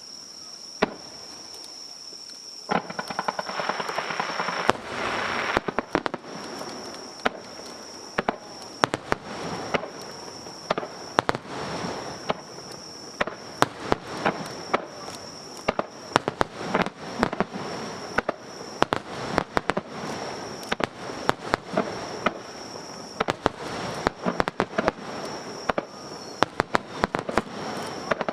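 Fireworks display: a dense run of shell bursts, sharp bangs and crackling that starts a few seconds in and keeps going. A steady high-pitched tone runs underneath.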